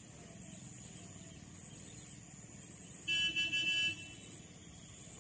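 School bus horn sounding a quick run of toots about three seconds in as the bus pulls away, over a faint steady outdoor background.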